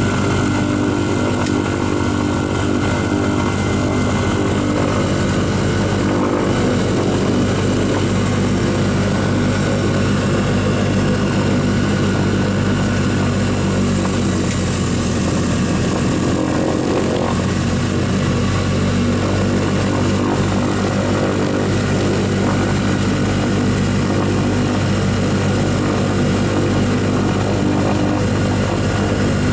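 Douglas DC-3's radial piston engines running steadily at run-up power, heard from inside the cockpit, with a slight change in tone about midway through.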